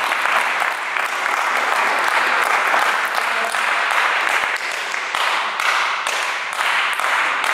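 Spectators applauding steadily in a sports hall, a dense clatter of many hand claps that greets a won point.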